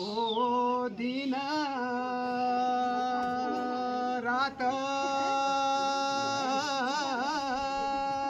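Kumaoni wedding folk music: a single melody of long held notes that shift pitch every second or few, breaking into quick wavering turns near the end.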